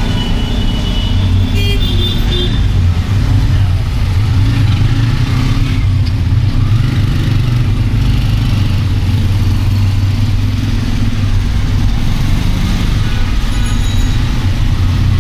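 Loud, steady low mechanical hum with a rushing noise over it.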